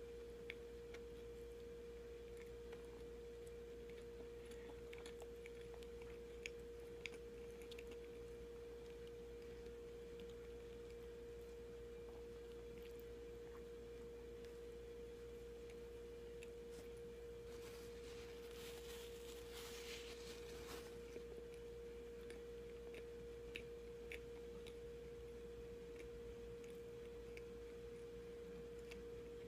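Quiet chewing of a soft sandwich: scattered faint mouth clicks over a steady hum, with a brief rustle about eighteen seconds in.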